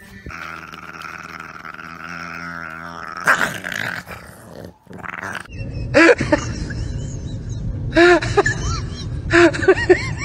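Two Shiba Inu dogs squabbling: a low growling rumble under repeated rising-and-falling yelps, in three bursts in the second half. Before them, a steady humming tone for about three seconds, then a short loud noise.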